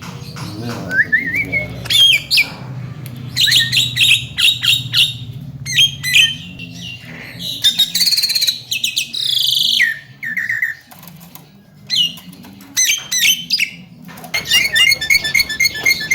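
Javan myna (jalak kebo) calling in a varied string of short whistled glides, clicks and harsh squawks, ending in a fast run of rapidly repeated notes over the last couple of seconds.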